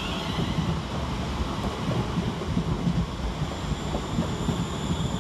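Class 350 Desiro electric multiple unit departing and passing close by: a low, uneven rumble from its wheels and running gear.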